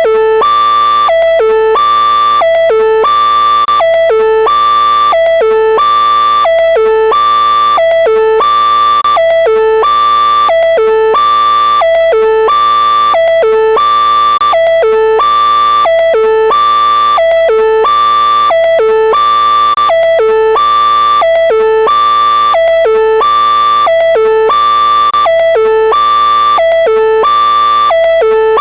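Synthesized vocoder-style alert tone looping: a short figure of three rising electronic notes, low, middle and high, repeating evenly about once a second.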